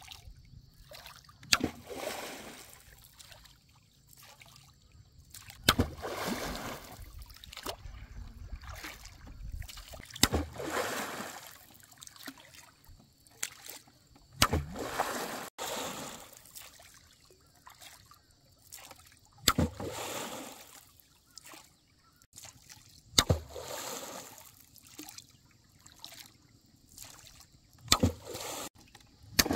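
A long bamboo pole slapped down onto the lake surface seven times, about every four seconds, each strike a sharp smack followed by about a second of splashing.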